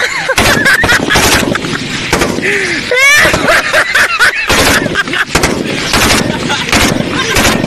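AKS-74U 5.45×39mm short-barrelled rifle firing on full auto in several short bursts, each a rapid string of sharp shots. Voices call out between the bursts.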